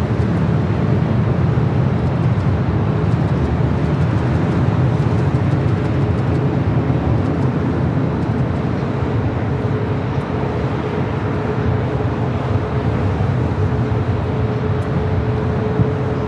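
Airbus A380's four jet engines at takeoff thrust during its takeoff roll: a loud, steady, deep rumble, with a faint steady hum joining about halfway through.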